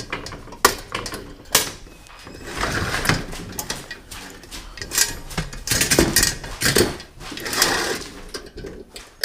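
A plastic carrying case being handled as its fasteners are popped open: a couple of sharp clicks, then stretches of rustling and clattering.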